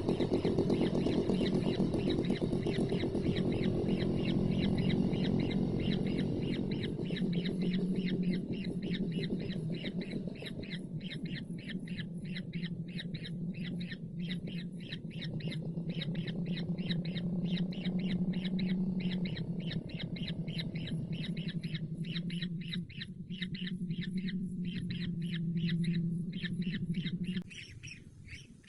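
Kingfisher chick calling: a fast, even run of short, harsh squawks, over a steady low drone that cuts off suddenly near the end.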